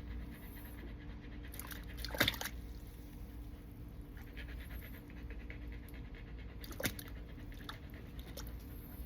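Rhythmic panting breaths over a steady low hum, with two sharp knocks, about two seconds in and again near seven seconds in.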